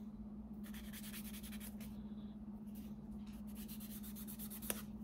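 Fingernail being filed by hand with the medium-grit side of a multi-step nail buffer to take off leftover glue: runs of quick, scratchy back-and-forth strokes. A steady low hum runs underneath, and a single small tap comes near the end.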